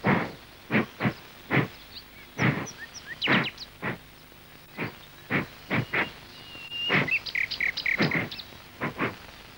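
A string of sharp, irregular smacks, sometimes close together and sometimes a second or more apart, with birds chirping a little before the end.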